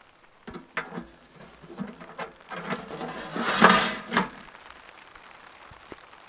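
Hands handling a folding saw with a few short knocks and clicks early on, then hands rubbing and brushing together in a rustling swish that is loudest just before the four-second mark.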